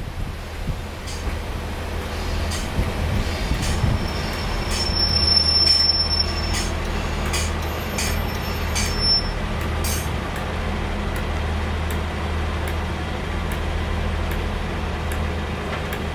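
Class 142 Pacer diesel railbus drawing slowly into a platform: a steady low diesel drone with repeated clicks as the wheels cross rail joints, and a high thin wheel squeal twice around the middle as it slows.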